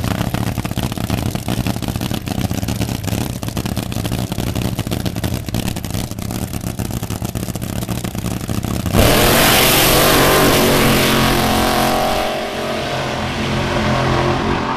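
Drag racing cars idling at the starting line with a rough, rapidly pulsing engine note, then launching at full throttle about nine seconds in with a sudden jump in loudness. The engine sound fades after a few seconds as the cars run away down the track.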